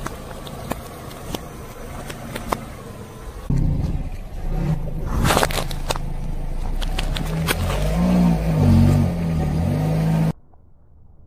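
Car tyre rolling slowly over soft food and then a watermelon, the engine running low under crackles and clicks. The watermelon rind gives a loud crack about five seconds in, followed by more clicks while the engine's pitch rises and falls. The sound cuts off suddenly near the end.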